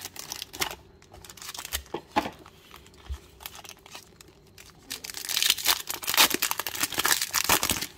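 Foil wrapper of a Bowman Chrome baseball card pack crinkling as it is handled, then torn open, with a louder run of crinkly ripping from about five seconds in.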